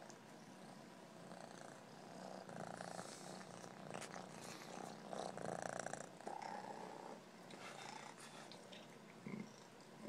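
Domestic cat purring steadily close to the microphone, with louder rustling in the middle as its fur brushes against the phone.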